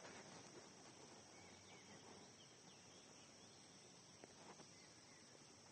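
Near silence: a faint, steady background hiss between stretches of narration.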